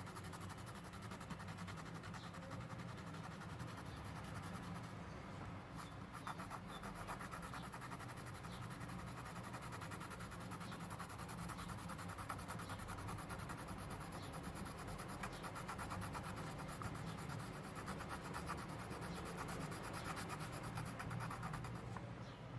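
Soft 2B graphite pencil shading on paper: quick, continuous back-and-forth scratching strokes filling in a dark area.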